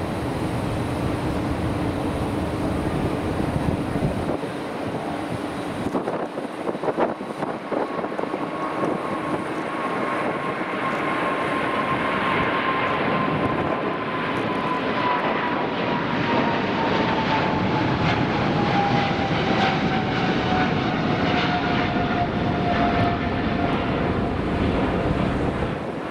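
Boeing 777-300ER's twin GE90-115B turbofans at takeoff thrust as the airliner lifts off and climbs out: a loud, rough jet rumble with a high whine that slowly falls in pitch over the second half.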